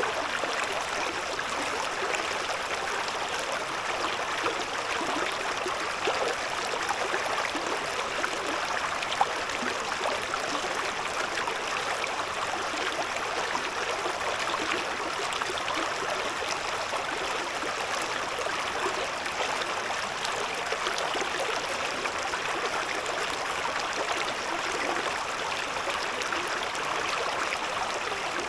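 Shallow river babbling and gurgling over stones, a steady rushing-water sound with no change.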